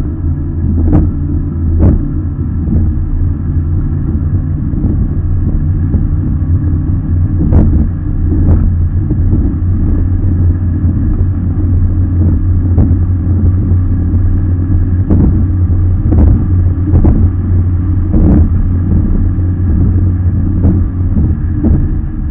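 Racing RIB's engine running steadily at speed, a loud low drone, with irregular thuds as the hull slams into the waves.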